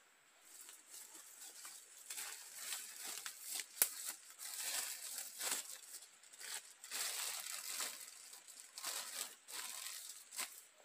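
Plastic bag crinkling and rustling in irregular bursts as it is handled, with one sharp click a little before the middle.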